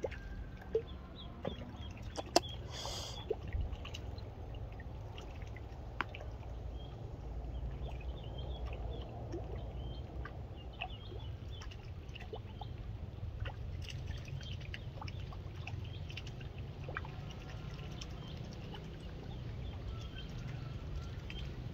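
A live duckling used as snakehead bait, jigged on the water surface at the end of a bamboo fishing pole: faint, scattered high peeps with small splashes and clicks on the water. A few sharper knocks come in the first few seconds, over a low steady rumble.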